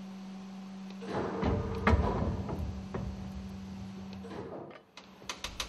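Metal clatter and a few knocks from handling a large marine engine piston and its lifting gear, over a steady low hum. The hum stops just before the end, and a short run of sharp clicks follows.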